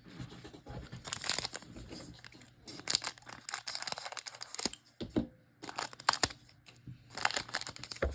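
Paper or foil wrapper of a trading card pack being torn open and crinkled by hand, in several rustling bursts.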